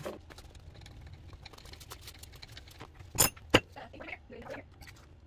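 Metal parts being handled and set down on a paper-covered workbench: faint paper rustling, then two sharp metallic clinks about a third of a second apart a little past the middle.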